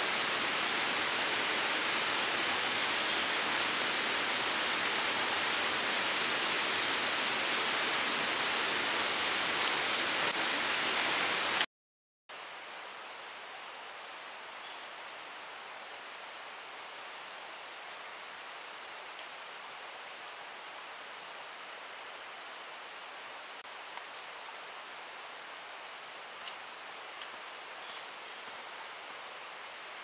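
Rainforest insects droning steadily in two high-pitched tones. For the first twelve seconds a dense rushing hiss lies under them. It cuts off abruptly, and after that the insect drone stands out clearer, with a faint run of quick, evenly spaced high chirps a little past twenty seconds in.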